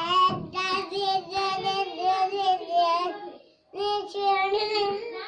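A young child singing a tune in a high voice without any accompaniment, holding steady notes in two phrases with a short break about three and a half seconds in.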